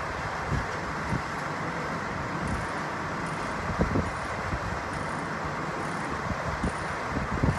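Steady rumble of idling heavy tow trucks' diesel engines heard from a distance, with a few short low bumps, the strongest about four seconds in.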